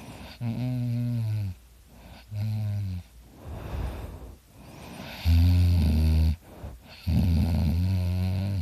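A person snoring heavily: four loud, low, buzzing snores of about a second each, with quieter breaths between them.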